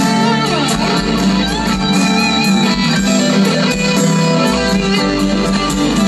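Live rock band playing an instrumental passage between sung verses, electric guitar to the fore with held, bending notes over keyboards and drums.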